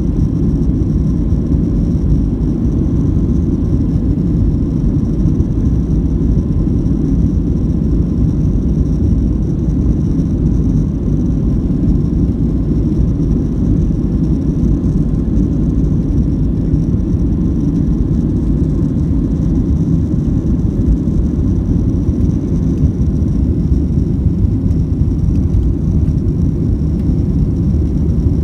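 Steady cabin noise of a Boeing 737-700 under way: a deep, even rumble of the CFM56 engines and airflow, with a faint high whine above it.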